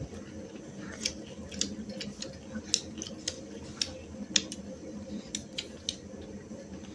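Mukbang eating sounds: irregular sharp, wet clicks and smacks of chewing and lips as people eat rice and curry by hand, about a dozen in a few seconds, the loudest a little past the middle.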